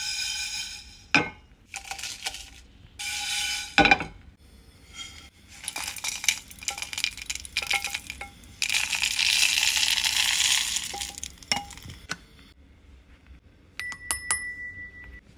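Whole dry-roasted spices (coriander seeds, cumin, cloves, dried red chillies) rattling and clinking in a nonstick pan, with a longer rush of seeds about nine seconds in as they are poured into a stainless steel jar. Near the end, a few sharp clinks of a spoon against a steel bowl, one left ringing.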